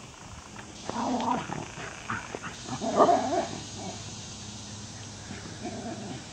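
Wire Fox Terriers barking while they play: a bark about a second in, a louder burst of barks about three seconds in, and a fainter one near the end.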